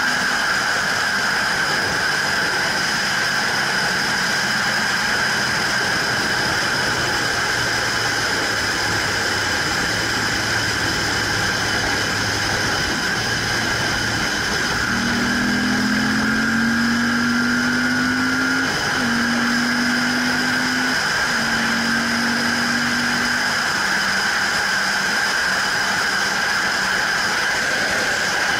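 Motorcycle riding at highway speed: steady wind rush and engine drone. About halfway through, the engine note rises as the bike speeds up, with two brief breaks in it before it settles back.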